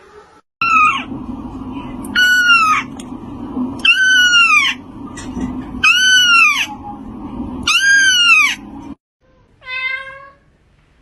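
A cat meowing loudly and high-pitched five times, about two seconds apart, each call rising and then falling in pitch, over a low steady hum. Near the end, after a short break, another cat gives a single lower meow that falls away.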